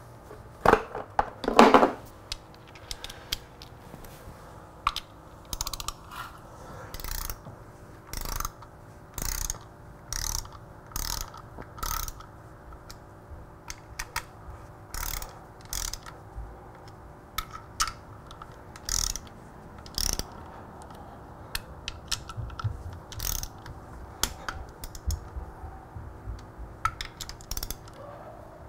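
Socket ratchet clicking in short runs of strokes, about one run a second, with a louder burst of clicks near the start, as bolts are turned.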